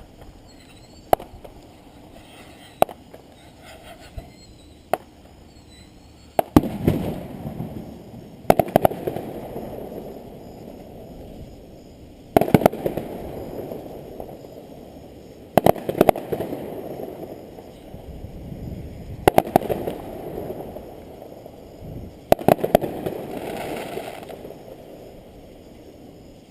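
Fireworks display: a few single sharp pops in the first several seconds, then six loud shell bursts a few seconds apart. Each burst is a quick cluster of bangs followed by a lingering echo that fades away.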